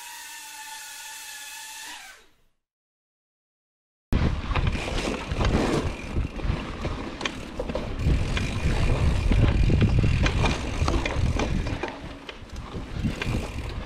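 Hardtail mountain bike ridden on a trail, picked up by a GoPro: a loud, rough rumble from the tyres and frame with frequent rattles and knocks, cutting in suddenly about four seconds in. Before that, a steady whine made of several tones fades out, followed by a moment of silence.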